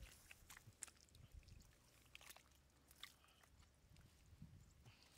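Faint, scattered wet squelches and clicks of hands working in shallow mud.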